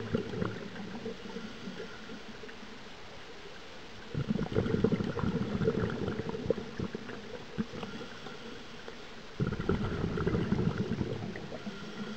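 Scuba regulator exhaust bubbles from a diver breathing out underwater: two long bubbly exhalations, one starting about four seconds in and another about nine and a half seconds in, with quieter inhalations between.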